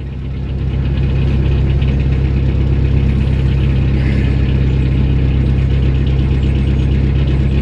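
Narrowboat engine running steadily with a low chugging drone, getting louder over the first second and then holding even.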